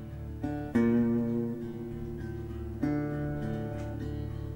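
Background music: acoustic guitar, slow plucked chords struck a few times and left to ring.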